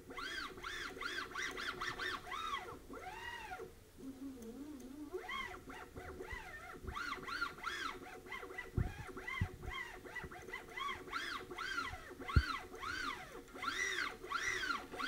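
Stepper motor directly driving a cable winch shaft back and forth, its whine rising and falling in pitch with each quick move, many short sweeps in a row. A couple of sharp clicks, the louder one late on.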